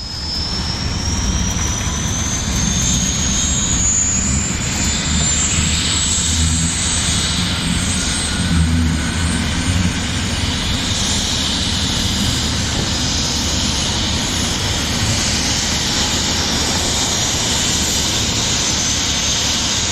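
Helicopter running: a steady rotor and engine rumble with a high turbine whine that rises over the first few seconds and then holds steady.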